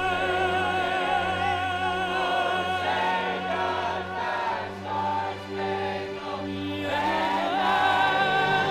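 Background music with voices singing held notes in a choral style over a steady low bass note; it thins out briefly about halfway through, then swells again.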